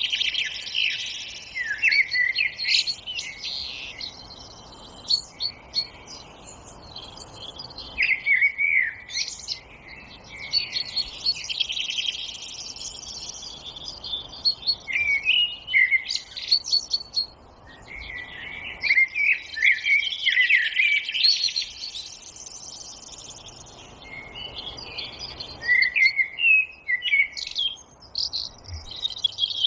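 Several songbirds singing and chirping together in a forest, in a dense chorus of quick high trills and sweeping notes that swells and eases every few seconds.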